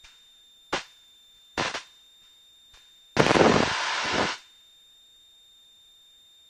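Aircraft headset and radio audio: three sharp clicks, then about a second of loud static-like crackle, over a faint steady high-pitched whine.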